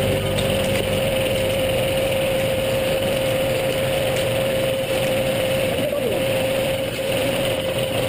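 Belt-driven sawmill powered by a John Deere 830 tractor, running steadily while the log is set: an even mechanical noise with a held hum that drops out near the end.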